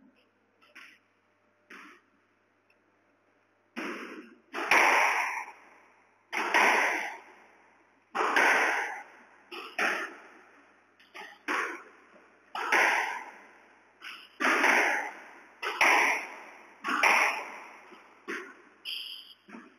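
A squash rally: the ball cracking off rackets and court walls, one sharp strike every one and a half to two seconds starting about four seconds in, each ringing on in the echo of the enclosed court.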